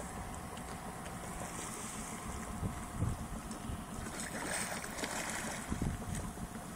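Wind buffeting a mobile phone's microphone over open water, a steady low rumble. About four and a half seconds in comes a short rushing splash as Atlantic white-sided dolphins break the surface.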